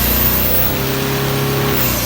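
Isuzu D-Max 3.0-litre four-cylinder turbo-diesel engine running in a boat, its speed lifting a little through the middle and easing back near the end.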